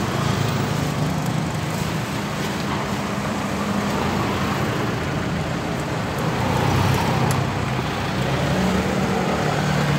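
Steady motor-vehicle engine hum with street traffic noise.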